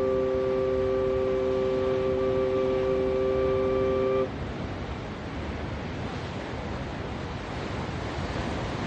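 Shamanic flute holding one long steady note, several tones sounding together, that breaks off suddenly about four seconds in. The steady wash of sea waves continues under it and after it.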